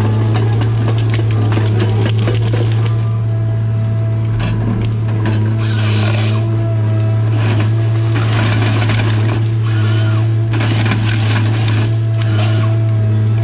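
Tigercat 855C harvester's engine and hydraulics running as a steady drone, with several bursts of the LogMax 7000 head cracking and crushing hardwood stems as it cuts and processes them, mostly from about halfway in.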